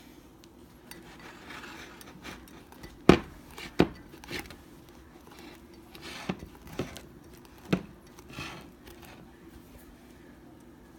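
Light handling sounds: a handful of sharp knocks and a little scraping, scattered through the middle, over a steady low hum.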